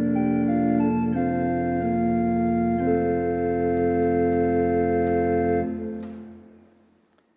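Organ playing slow sustained chords over a steady low bass note, closing on a final chord about five and a half seconds in that dies away over a second or so.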